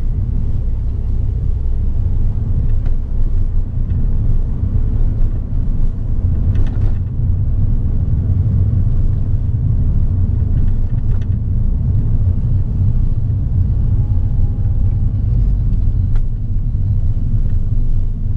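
Steady rumble of engine and tyre road noise heard from inside the cabin of a moving car.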